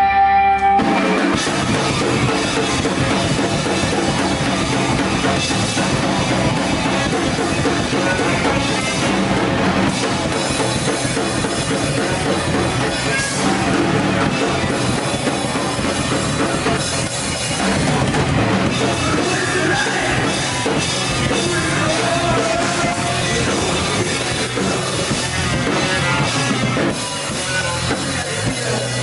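Live rock band playing loud, with a drum kit, electric guitars, bass and a saxophone; the drums and full band come in about a second in.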